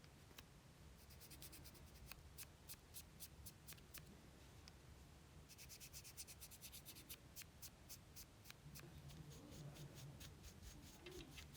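Faint small clicks and light rubbing from hands at work on nail art, over quiet room tone; some of the clicks come in quick runs.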